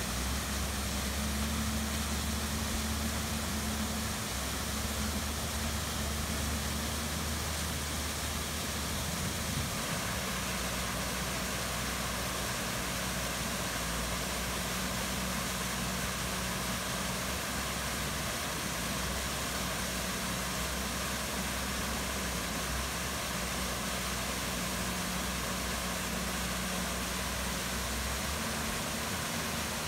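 Steady rushing of a small waterfall and the stream below it, an even continuous wash of water noise, with a low steady hum underneath.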